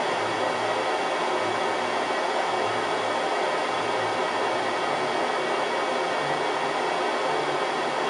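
1988 Kirby Heritage II Legend upright vacuum cleaner running, its motor giving a loud, steady whoosh that holds unchanged throughout.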